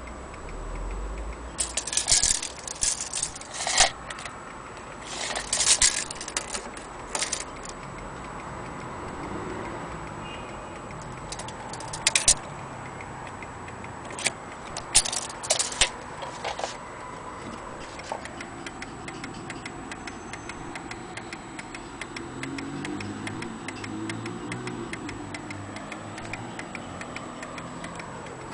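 Hermle pendulum wall clock ticking steadily. Several short bursts of clatter from handling come in the first half.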